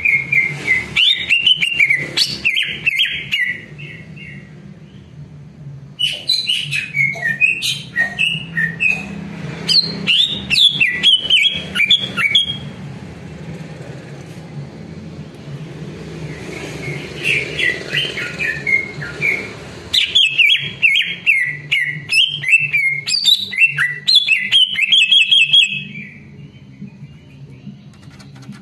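Caged cucak ijo (green leafbird) singing loud, fast chattering phrases of sliding, whistled and clicking notes, in four bursts with short pauses between them. A steady low hum runs underneath.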